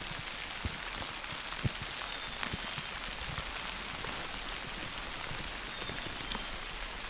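Steady light rain, with scattered drops ticking and tapping close by.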